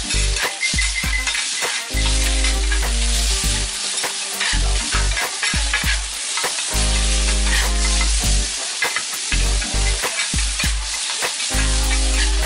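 Food sizzling on a hot flat iron griddle while two metal spatulas chop and scrape vegetables and fillings for monjayaki, with many quick sharp clicks of the blades striking the plate. Background music with a low bass line underneath.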